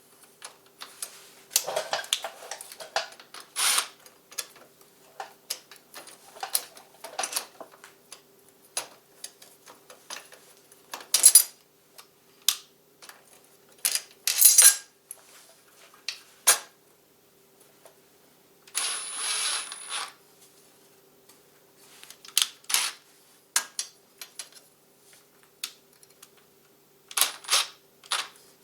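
Hand tools and metal parts clicking and clinking irregularly as bolts are fitted on a motorcycle's rear brake pedal assembly, with a denser rattle lasting about a second around two-thirds of the way through. A faint steady hum lies underneath.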